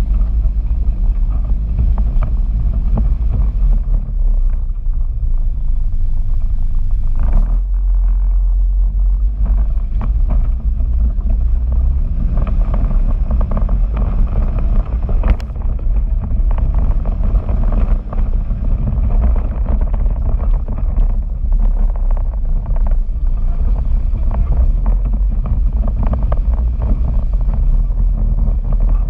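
Arctic Cat Wildcat Sport 700 side-by-side's engine running under load, the revs rising and falling as it drives, with scattered knocks and rattles from the machine crossing rocky ground.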